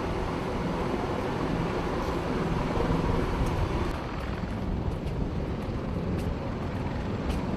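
Steady aircraft engine noise on an airfield flight line, a continuous rumble without speech that changes in character about four seconds in.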